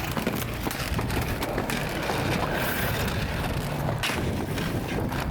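Skateboard wheels rolling over rough street pavement, with a steady rumble and many scattered knocks and clacks.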